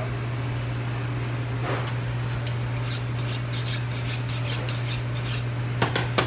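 Knife being honed on a honing steel: a quick run of metal-on-metal scraping strokes, about five a second, starting about three seconds in, with two more strokes near the end.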